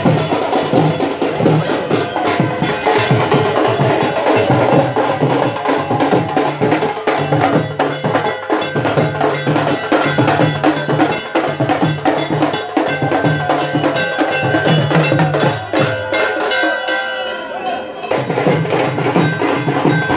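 Procession drum band: large double-headed barrel drums and a snare drum beaten in dense, rapid strokes, with steady ringing tones over the drumming in the second half.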